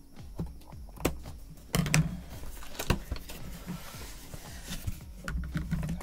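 A large cardboard mailing box being lifted and shifted by hand: the cardboard scrapes and rustles, with several knocks as it bumps and is set against the table.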